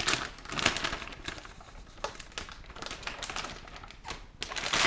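Motherboard box and its anti-static bag being handled: a run of light taps, clicks and rustles, busiest in the first second and again near the end.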